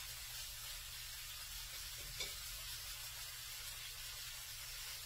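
Faint steady hiss over a low hum, with one soft tap about two seconds in.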